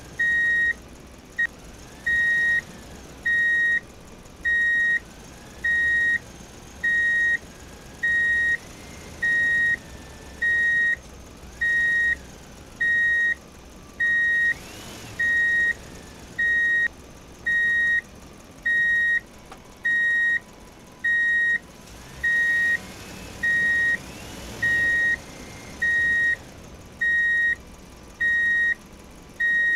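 Electronic reversing-alarm beeps at one steady high pitch, one about every second. A faint whine rises and falls twice in the middle.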